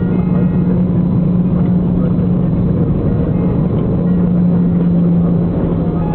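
Jet airliner cabin noise on the landing rollout: the engines and the rolling on the runway make a loud, steady noise with a low hum that drops slightly in pitch about four seconds in.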